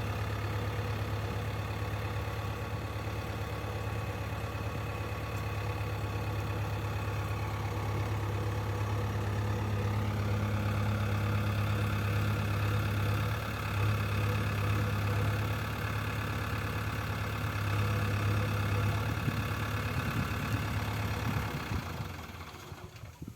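JCB backhoe loader's diesel engine running steadily, its pitch stepping up slightly about ten seconds in, then fading away near the end.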